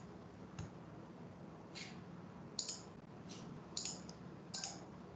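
Faint computer mouse clicks, about six short sharp clicks at irregular intervals, over a low steady hum.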